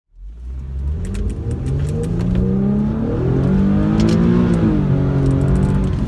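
Car engine accelerating, heard from inside the cabin: its pitch climbs for about three seconds, then eases back and holds steady. A few faint clicks sound over it.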